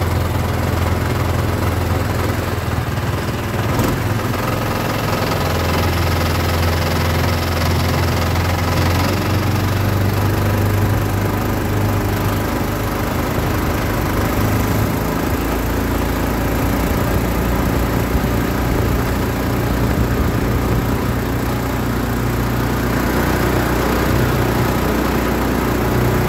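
Swamprunner longtail mud motor on a jon boat running steadily while the boat is under way. The engine note shifts pitch a couple of times as the throttle changes.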